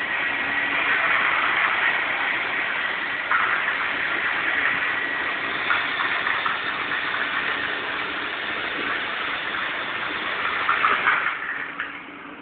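Small battery-powered RC toy helicopter's electric motor and rotor blades whirring steadily with a high whine. A few sharp knocks come near the end, and then the sound drops away.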